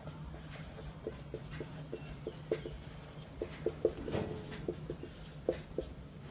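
Marker pen writing on a whiteboard: a run of short, quick strokes as letters are written, over a steady low hum.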